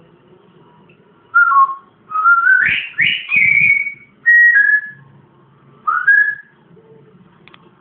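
Parrot whistling a string of short notes that slide up and down, about five phrases in quick succession, ending a little past the middle.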